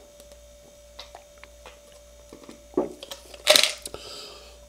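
A man gulping down a glass of fizzy soda, with soft wet clicks of swallowing. About three and a half seconds in comes a loud, breathy exhale after the drink.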